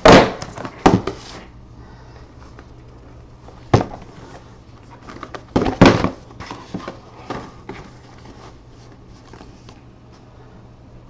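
Cardboard hobby boxes of trading cards being handled and set down on a stack: a few sharp knocks and scuffs, the loudest right at the start, about four seconds in and around six seconds in, over a low steady hum.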